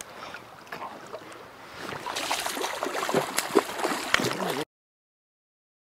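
A hooked steelhead splashing and thrashing at the surface of a flowing creek. About two seconds in the splashing grows louder, and a little past halfway the sound cuts off suddenly into silence.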